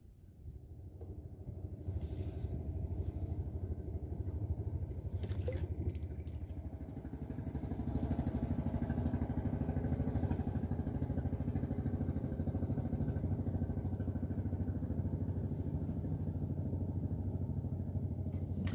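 A small engine running steadily, a low hum that gets louder about two seconds in and again around eight seconds in.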